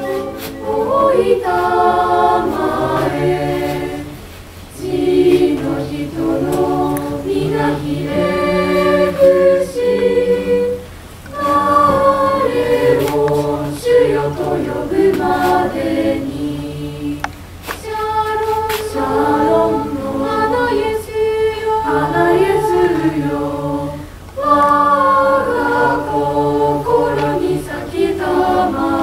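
Mixed choir of girls' and boys' voices singing in parts under a conductor, in phrases with short breaks every five to seven seconds.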